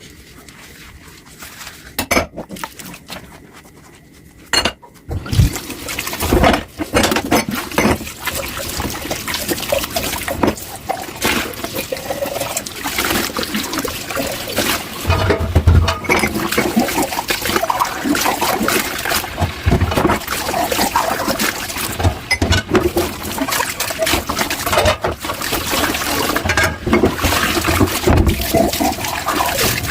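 Tap water running into a kitchen sink during dishwashing, with many clinks and knocks of dishes being handled. The water starts about five seconds in, after a quieter stretch with a few sharp clicks.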